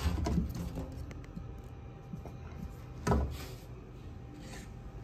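Handling noise: two dull thumps about three seconds apart, the first at the start and the second a little after three seconds in, over a steady low hum.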